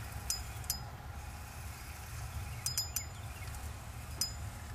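About six small, sharp metallic clicks and clinks as spinning fishing tackle is handled at the reel and line, over a low steady rumble.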